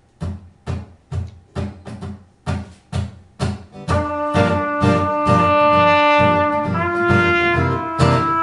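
Live band music opening a song: a steady percussive beat of low strikes, about two a second. About four seconds in, a long held melody line joins on top, changing note near the end.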